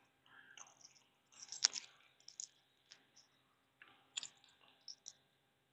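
Faint, scattered wet clicks and lip smacks of someone chewing a raw piece of black witches' butter jelly fungus (Exidia glandulosa); the sharpest click comes about one and a half seconds in.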